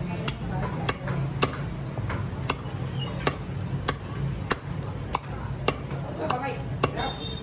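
Butcher's cleaver chopping chicken on a wooden chopping block: a run of about eleven sharp knocks, one every half second to second.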